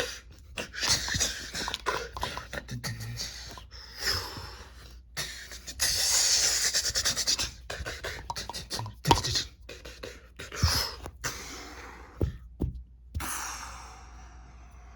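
A scuffle of quick hits and sharp knocks mixed with breathy, hissing mouth sounds and panting, with one long hiss about six seconds in.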